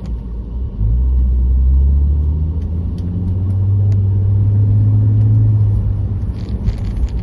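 Car engine and road rumble as the vehicle pulls away and accelerates. The engine note steps up about a second in, changes around the middle, holds higher, then eases off near the end.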